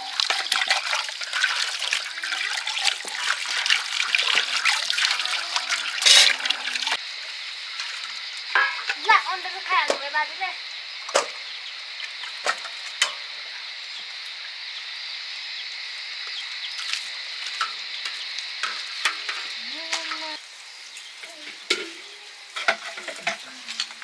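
Water pouring from a hose pipe into a metal basin while steel cups and dishes are rinsed, with splashing and frequent clinks of metal on metal. After about seven seconds the splashing gives way to a steadier high hiss with occasional knocks of dishes, which drops away near the end.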